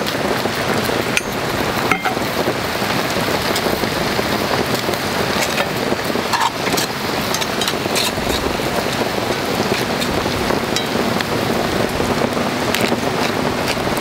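Potatoes, bacon and cabbage sizzling in a cast-iron skillet, with sausages frying on a pan beside it, over a wood fire, just after a splash of beer has gone into the skillet. A steady loud sizzle with scattered sharp pops and crackles.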